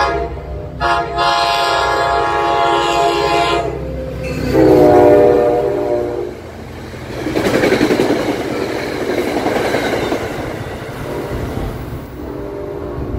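NJ Transit locomotive horn sounding a short toot and then two longer chord blasts, the second lower in pitch as the locomotive passes, followed by the steady noise of the passenger cars going by at speed.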